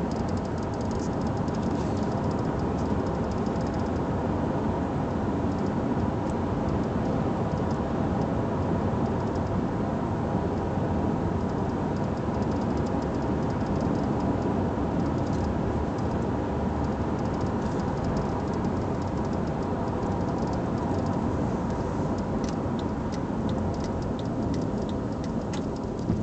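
Acura TL making a loud, steady noise: a constant drone with an even hum running through it.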